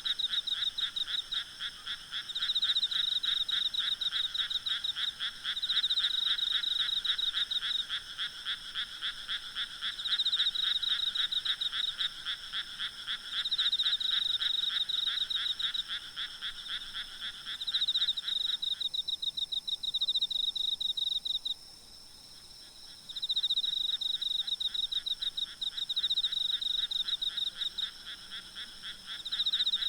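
Night chorus of frogs and insects: frogs calling in rapid pulsed trills that come in bouts of about two seconds, over a faint steady high insect hum. A lower, dense layer of the calling stops about two-thirds of the way through, leaving the higher trills.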